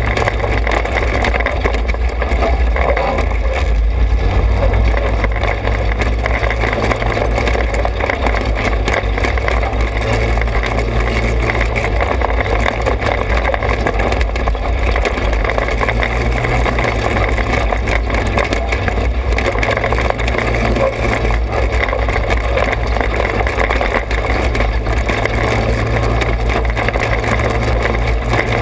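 The small engine of a Trailmaster 200 XRX runs steadily under way on a dirt trail, its pitch easing off and picking up slightly a few times. Dense low rumble and road noise lie under it.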